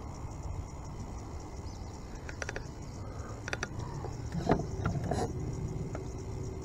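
Spinning reel being cranked on a retrieve: a steady low rumble with a handful of short sharp clicks around the middle.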